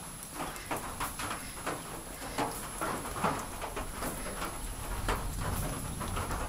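Water dripping irregularly as a thunderstorm passes, single drops landing every fraction of a second, with faint chicken clucks mixed in.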